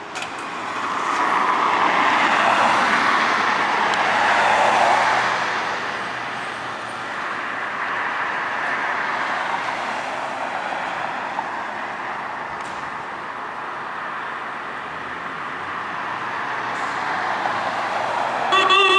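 Road traffic noise that swells as a vehicle passes in the first few seconds, then settles to a steady hum with an idling emergency vehicle. Right at the end a loud warbling siren starts up.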